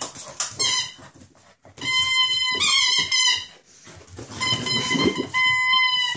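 Samoyed puppy whining in long, high-pitched calls, twice for about a second each plus a short one near the start, the first long call wavering in pitch; it is frustrated with its water bowl.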